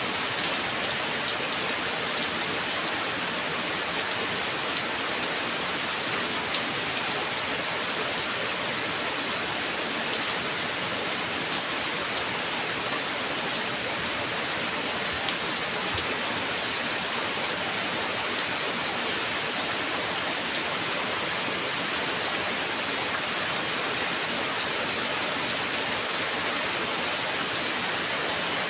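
Heavy rain falling steadily: a dense, even hiss with faint scattered ticks of individual drops.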